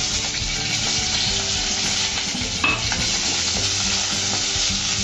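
Hot oil sizzling steadily in a kadai as a tempering of black mustard seeds, cumin and dried red chillies fries, with a spatula stirring it. A single sharp click of the spatula against the pan comes about two and a half seconds in.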